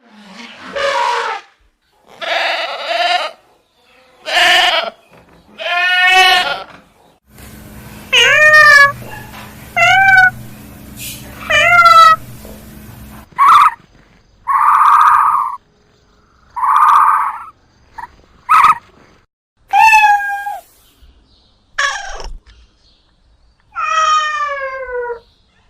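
A string of about a dozen separate animal cries, each a second or less with short gaps between, most of them pitched calls that slide down at the end, of the goat-bleat and cat-meow kind. A faint steady hum lies under the calls in the middle stretch.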